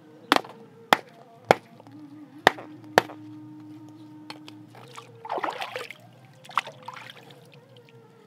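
A large knife chopping down onto a Hypostomus armored catfish laid on a rock: five sharp chops in the first three seconds, then the blade scraping over the fish and stone, with one more knock near the end.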